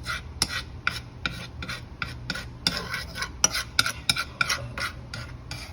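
A knife scraping as it spreads butter, in short quick strokes at about three a second.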